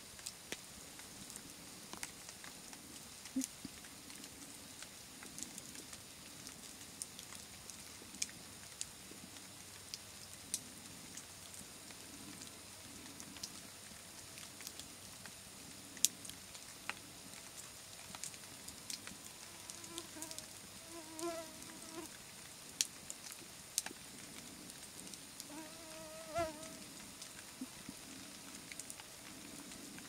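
Wood campfire crackling, with scattered sharp pops; the loudest pop comes about halfway through. A brief pitched sound is heard twice, about two-thirds of the way in and again near the end.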